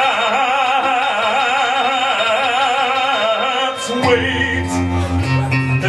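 Live music on electric guitar and piano: a long note with a wide, even vibrato is held for about four seconds, then the music changes to heavy low notes and chords.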